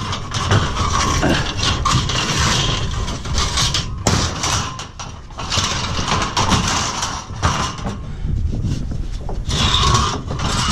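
Winch hauling a wrecked Jeep onto a trailer: continuous mechanical grinding with many short metal clanks and scrapes.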